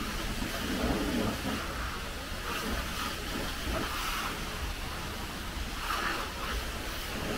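Car-wash hose wands spraying water onto cars: a steady hiss that swells now and then, over a low rumble.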